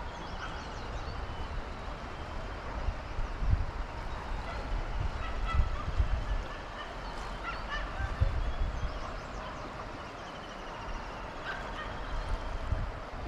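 Birds calling now and then over the steady rush of the Teesta river, with gusts of wind rumbling on the microphone.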